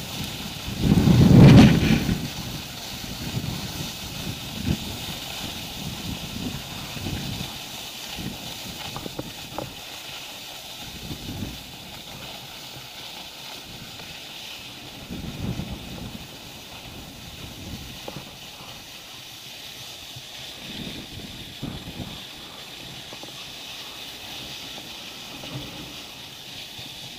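Wind buffeting the microphone while skiing downhill, in irregular low rumbling gusts with the strongest about a second in, over the steady hiss of skis sliding on packed snow.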